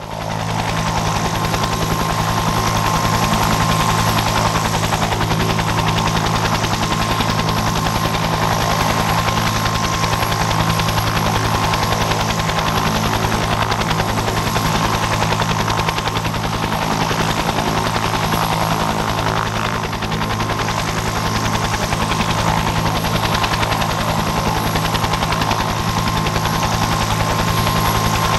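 Bell UH-1 Iroquois "Huey" helicopter running on the ground with its two-bladed main rotor turning, giving the type's typical rapid, even blade beat over a steady high whine from its Lycoming T53 turboshaft.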